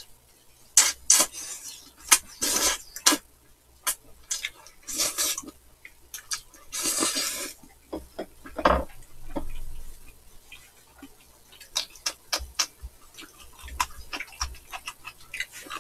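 Eating sounds: jjajang noodles in black bean sauce slurped in several separate pulls, each about half a second long, with chewing and short clicks of chopsticks and spoons against bowls.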